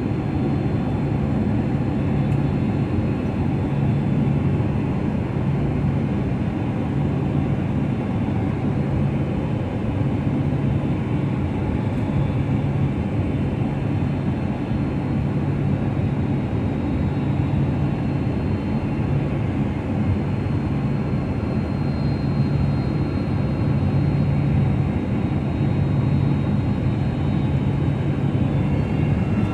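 Cabin noise inside a Boeing 767-300 on final approach: the steady roar of the engines and the air rushing past the fuselage, with a low hum that swells and fades every second or two.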